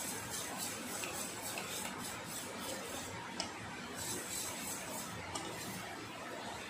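Whisk beating an egg mixture in a stainless steel bowl, the wires scraping and clicking against the metal in a quick, even rhythm, with one sharper clink about three and a half seconds in.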